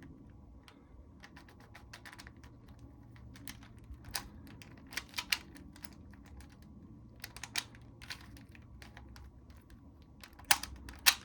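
A plastic 4x4 Rubik's cube being turned by hand: its layers clicking and clacking at irregular moments, with a louder pair of clacks near the end.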